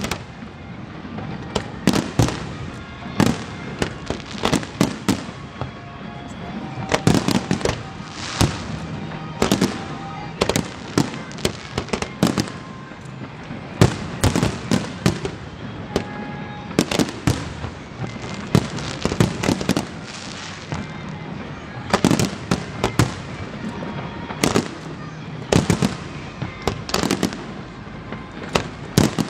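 Aerial fireworks display: shell after shell bursting in sharp bangs, often several in quick succession, over a continuous crackle and rumble.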